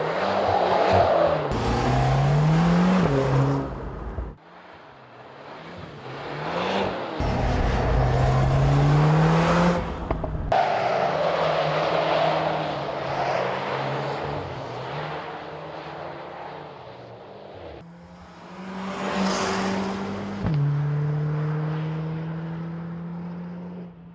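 Turbocharged four-cylinder hot-hatch engines driven hard in a run of cut-together driving clips. The engine note climbs twice in the first ten seconds as the car accelerates, over a loud rushing noise. A car passes by a little before the end, then an engine holds a steady note.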